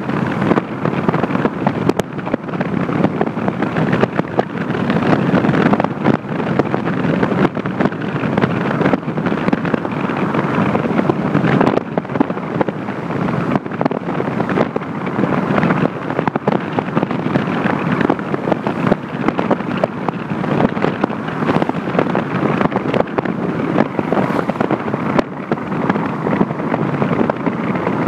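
Wind buffeting a microphone held at the window of a moving car, over the car's tyre and road noise, with irregular gusty thumps.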